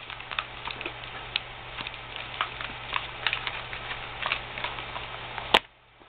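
Light clicks and rustles of eyeglasses being handled in and out of a soft case, over a steady low hum. Near the end a single sharp click, after which the hum drops away.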